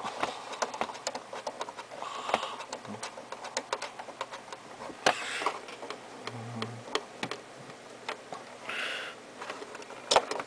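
Irregular small clicks, taps and rustling as monitor cables and their plastic-and-metal connectors are handled and worked loose from the back of the monitor.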